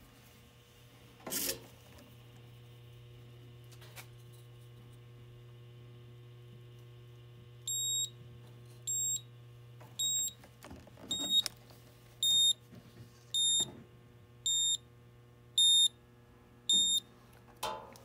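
Handheld digital multimeter beeping: short high-pitched beeps about once a second, nine in all, starting about eight seconds in. A knock comes about a second in, and a steady low hum runs underneath.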